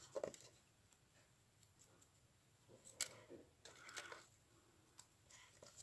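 Near silence, broken by a few faint light clicks and rubbing sounds, the clearest about three seconds in and again a second later, from fingers dabbing metallic wax out of a small jar and rubbing it onto a small metal charm.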